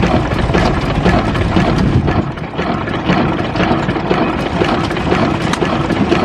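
Vintage horizontal stationary engine with a big spoked flywheel running steadily: a continuous mechanical beat with regular clicks.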